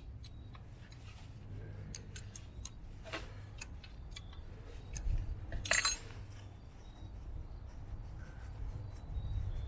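Scattered metallic clicks and clinks of hand tools working on engine parts, with a louder clink about three seconds in and a louder burst of clinks near six seconds, over a faint low hum.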